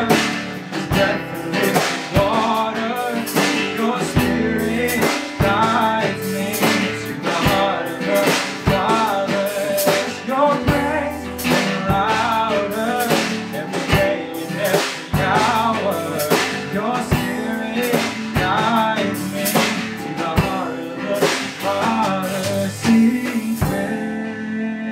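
Worship band playing live: a male lead singer sings over acoustic guitar, electric guitar, keyboard, bass and drum kit. The drums stop near the end.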